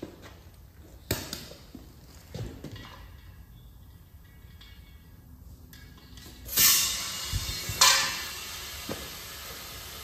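Compressed air hissing in two short, loud bursts from an air chuck at a truck tyre's valve as the tyre is inflated, about two-thirds of the way in and again a second later. A few light knocks come earlier.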